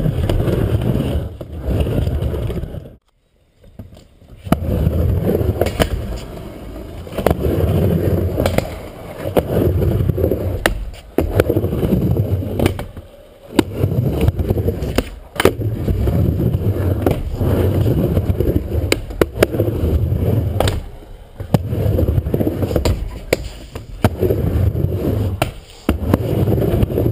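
Skateboard wheels rolling on a concrete mini-ramp, a rumble that swells and fades as the skater rides back and forth, with sharp knocks now and then. The sound drops out briefly about three seconds in.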